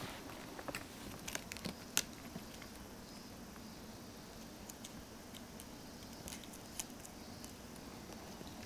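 Young Munchkin kittens' claws and paws scratching and ticking on a cardboard scratcher and a quilted sofa cover as they play. The sound is faint scattered small clicks and scratches, busiest in the first two seconds or so, over a low steady hum.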